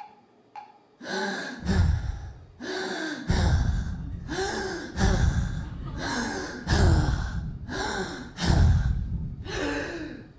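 A man gasping loudly again and again, breathy heaves with voice in them, roughly one a second, starting about a second in.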